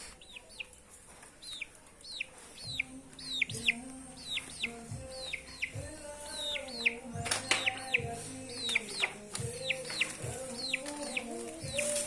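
A chicken peeping: short, high calls that fall sharply in pitch, about three a second, over a song with a slow melody of held notes.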